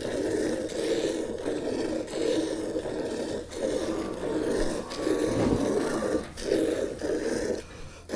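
Buffalo being hand-milked: milk squirting in rhythmic spurts into a pail, one frothy stream after another with short breaks about every second.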